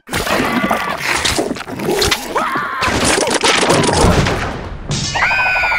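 Cartoon sound effects: a busy run of crashes, thuds and clatters, with a heavy boom about four seconds in. Near the end comes a high, held cartoon squeal.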